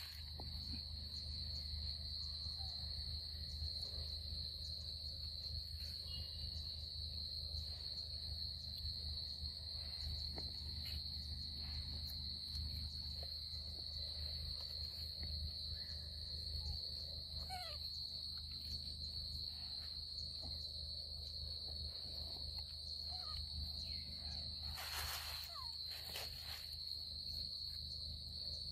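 A steady chorus of insects, likely crickets, trilling on one high pitch without a break, over a low steady rumble. A couple of short scratchy noises come near the end.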